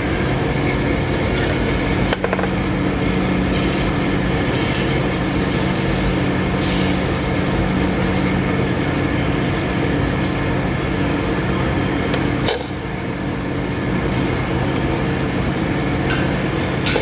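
Steady background hum with a couple of small sharp clicks, about two seconds in and about twelve seconds in, as a glass cartridge fuse is handled and pressed into its clips on an induction cooker circuit board.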